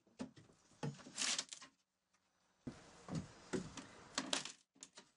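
A pry bar levering up timber floorboards: irregular knocks and scrapes of metal against wood.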